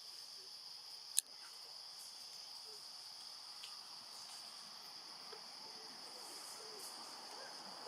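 Steady high-pitched drone of insects, with one sharp click about a second in.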